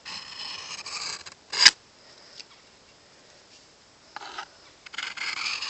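Carbon-steel knife blade scraping across a 750-grit sharpening stone in push-pull strokes: one long stroke at the start, a sharp click just after it, then after a pause a short stroke and another stroke beginning near the end.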